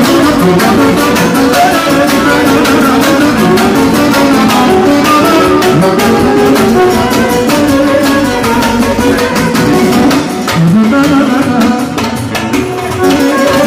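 Loud live band music: a violin and an electronic keyboard playing together over a steady beat.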